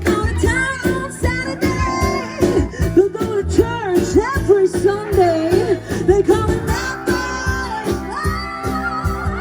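Rock-style background music with a singing voice, guitar and a steady drum beat.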